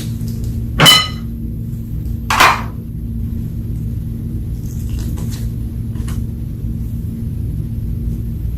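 Slime being handled during makeup colouring: a steady low rumble, with a sharp ringing click about a second in, a softer crackly burst a little later, and a few faint ticks.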